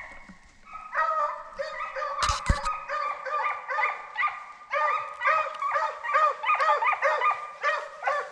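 A pack of hunting hounds in full cry, running a deer: many dogs bawling and baying at once in short rising-and-falling calls, getting much louder about a second in. Two sharp knocks close together about two seconds in.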